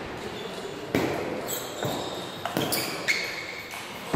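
Table tennis rally: the celluloid-type ball clicking off the bats and bouncing on the table, about five sharp clicks half a second to a second apart, each ringing briefly in a large hall.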